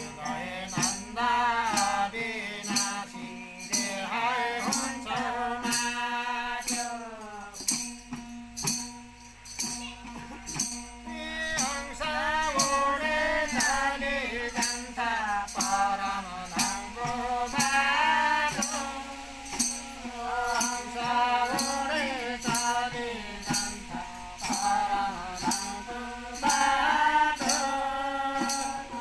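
A group singing a devotional song (bhajan) together, with a steady drone from plucked long-necked stringed instruments and small hand cymbals struck on an even beat, a little over once a second.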